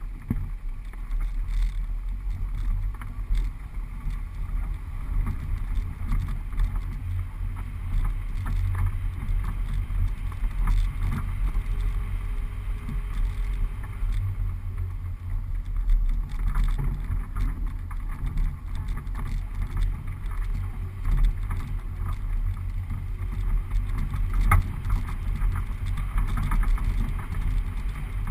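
Suzuki four-wheel drive driving along a bumpy sand track, heard from inside the cabin: a steady low engine and tyre rumble with frequent knocks and rattles as it goes over the ruts, and one sharper jolt about 24 seconds in.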